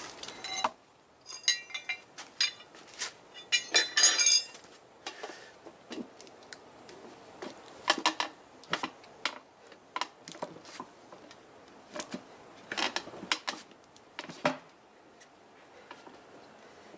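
Metal hand tools clinking and clattering against each other and the wheel while a motorcycle tyre is fitted by hand. The clinks come in scattered clusters, some with a short metallic ring.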